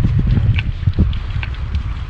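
Wind buffeting the microphone in uneven gusts, with a few light metallic clicks from a screwdriver working in a pulley block hanging on a chain.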